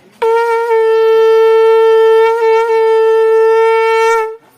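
A conch shell (shankham) blown in one long, steady, horn-like note of about four seconds, with a slight wobble in the middle, cut off sharply at the end.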